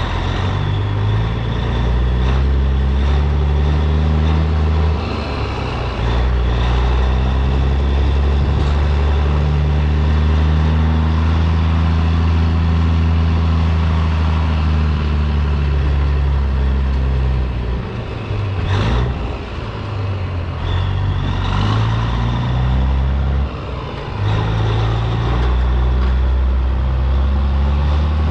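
Heavy truck's diesel engine running under load, its note slowly rising and falling. The engine sound dips briefly and picks back up about five seconds in, again around nineteen seconds, and near twenty-four seconds.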